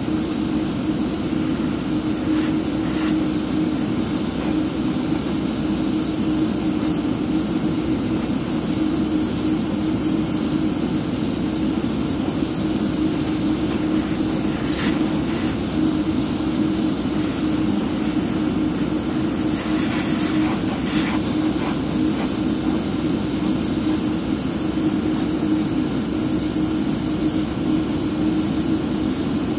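Airbrush spraying thinned model paint in a fine mist: a steady hiss of air over the constant hum of a running motor.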